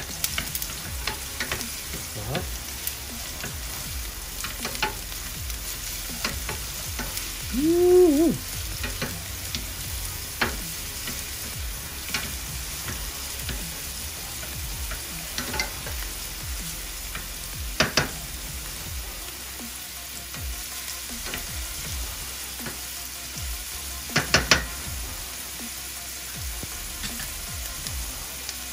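Diced onions frying in ghee in a stainless steel pan: a steady sizzle, with a wooden spatula stirring, scraping and clicking against the pan. A brief pitched sound rises and falls about eight seconds in, and a few sharp taps on the pan come later.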